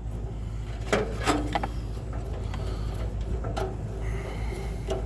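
A few light clicks and knocks as a socket with a taped-in screw is handled and worked down into a hole, over a steady low hum.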